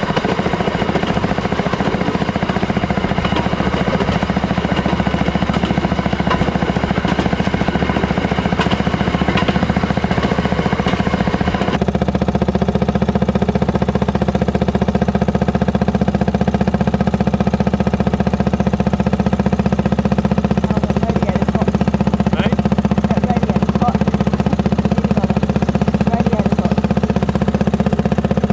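Engine of a Fairmont M19 rail section car (speeder) running steadily while under way on the rails. The engine note changes abruptly about twelve seconds in and is steadier after that.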